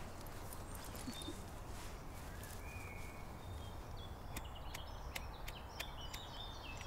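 Faint outdoor park ambience: a steady low rumble with small birds chirping now and then, and a few light clicks in the second half.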